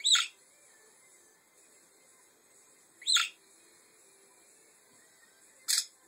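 Budgerigar giving three short, loud calls about three seconds apart. The first two sweep down in pitch and the last is a shorter, harsher burst, with faint warbling between them.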